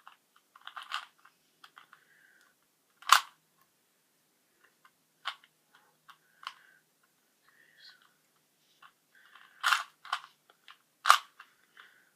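Rubik's cube being turned by hand: its plastic layers click and snap at irregular intervals. The sharpest snaps come about three seconds in and twice near the end, with softer clicks between.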